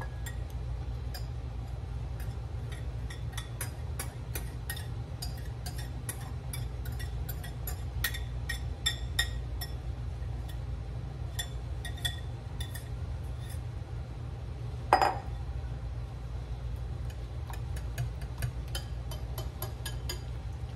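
Wire whisk clinking and tapping against a glass mixing bowl as grated cheese is scraped in and whisked into beaten eggs: light, irregular clinks, with one louder knock about three quarters of the way through, over a steady low hum.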